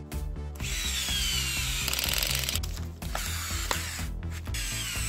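Power screwdriver whirring as it drives screws into the plastic housing of a Makita HR2230 rotary hammer during reassembly: a long run of about two seconds, then a second one near the end, its whine sinking slightly as the screw tightens. Background music with a steady beat plays throughout.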